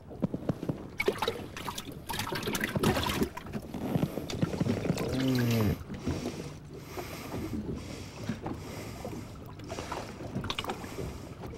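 A largemouth bass being handled in a bass boat's livewell: hands in the water, with splashing and a run of knocks and clicks against the livewell and deck over the first few seconds. A brief rising-and-falling hum comes about five seconds in, then quieter handling over steady wind and boat noise.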